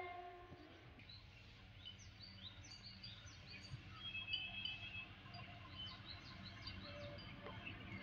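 Small birds chirping with many short, quick calls over a faint low rumble from a distant narrow-gauge locomotive approaching, which grows a little toward the end. The tail of a locomotive horn blast dies away right at the start.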